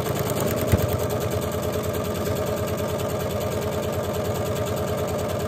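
Sewing machine running at a fast, even stitching speed, with a single knock less than a second in.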